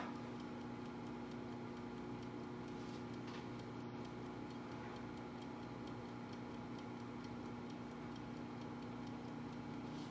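Kitchen timer ticking steadily and fast over a steady low hum, with a faint knock about four seconds in.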